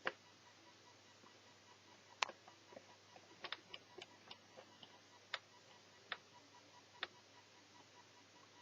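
Small sharp clicks and taps at irregular intervals, about a dozen, as small laptop parts and a tool are handled during the teardown. The loudest click comes about two seconds in, and there is a cluster around three and a half to four and a half seconds, over a faint steady hum.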